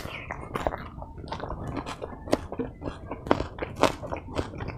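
A person chewing a mouthful of food with wet smacking and many sharp clicks of lips and tongue, several a second, recorded up close as eating-sound ASMR.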